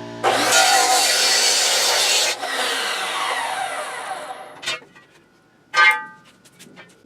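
A power saw cuts through a metal canopy-pole tube. The cut is loud and grinding for about two seconds, then the blade winds down with a falling whine. Near the end come a few light clicks and a ringing metal clank.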